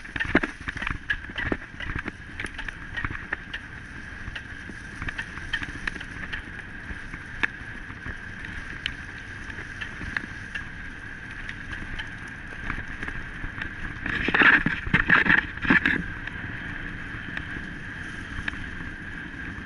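Rolling and crunching travel over a wet dirt forest track behind a pulling dog, with irregular rattles and clicks, wind on the microphone and a steady thin high whine. A louder, rougher burst of noise comes about three quarters of the way in.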